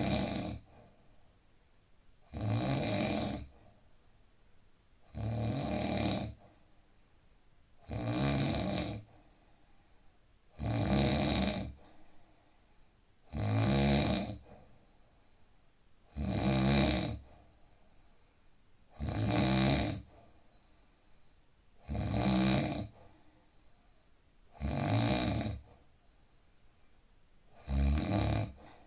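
A man snoring in deep sleep, in a regular rhythm: snores about a second long, one roughly every three seconds, with quiet breaths between them.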